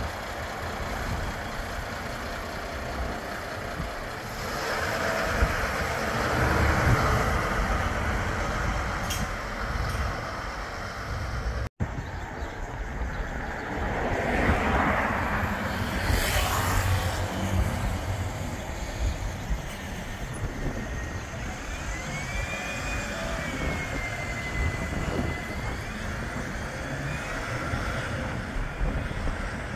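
City bus engines and road traffic. A Mercedes-Benz Citaro single-decker bus pulls away from the kerb, its engine swelling a few seconds in. After an abrupt cut, an Alexander Dennis Enviro 400City double-decker bus approaches, with a louder swell of passing traffic and a brief wavering whistle-like tone later on.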